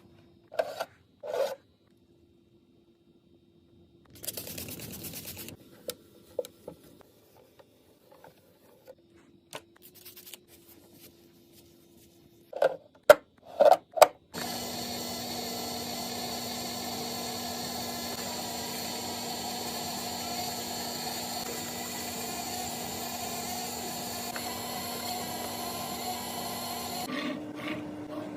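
Containers and packaging being handled during fridge restocking: scattered clicks and knocks, the loudest a few sharp knocks about halfway through. After that comes a long, steady mechanical whir with hiss that holds even and stops shortly before the end.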